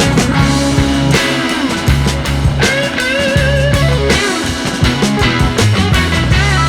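Background rock music with electric guitar, bass and drums.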